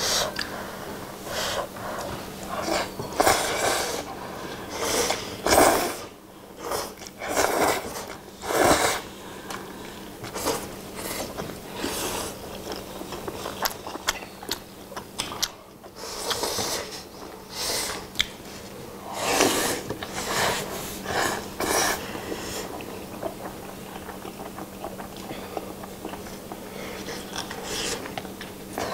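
Two people slurping and chewing jjapagetti black-bean instant noodles: loud, irregular slurps come thick and fast, then thin out to quieter chewing for the last several seconds.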